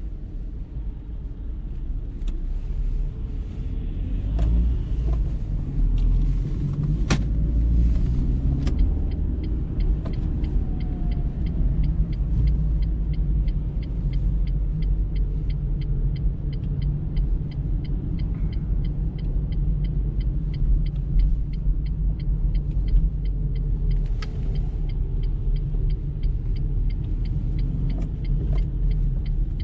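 Car engine and road rumble heard from inside the cabin while driving slowly in heavy traffic. About nine seconds in, a regular light ticking of about three ticks a second starts and runs alongside the rumble. A single sharp click comes about seven seconds in.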